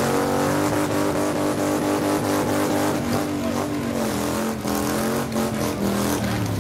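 Motorcycle engine held at high revs during a burnout. The pitch stays steady, dips briefly a little past halfway, then picks up again before falling near the end.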